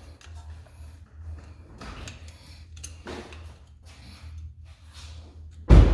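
Light metal clicks and taps of hand tools working the pins out of a brake caliper, over a steady low hum, with one loud knock near the end.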